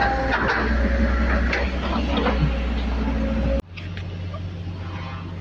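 Tracked excavator's diesel engine running close by, a heavy low rumble with clanks and knocks from the machine at work. About three and a half seconds in it cuts off abruptly to a quieter, steady low hum.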